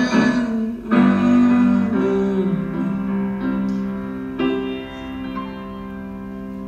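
Background music: the closing bars of a pop ballad, a voice singing a last "someone" over held piano chords that are struck and left to ring out and fade.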